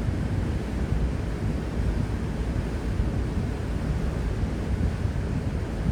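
Wind buffeting the microphone over a steady low rumble of open water and boat noise.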